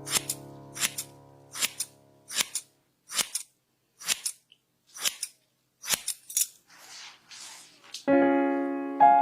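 Barber's scissors snipping hair in quick double snips, about one pair a second, over soft keyboard music that fades away in the first couple of seconds. A soft rustle follows, then a loud piano-like chord is struck near the end.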